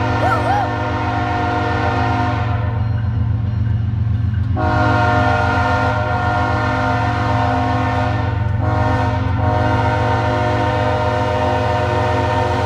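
BNSF diesel locomotive's air horn sounding in long blasts: one ending about two seconds in, then a longer one from about halfway with a short break near the end. Under the horn, the locomotive's diesel engines run with a steady low rumble.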